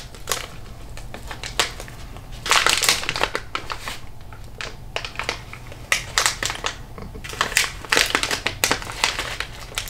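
Crinkling and rustling of a snack pouch of seasoned roasted crickets being opened and handled, in irregular bursts with two busier stretches.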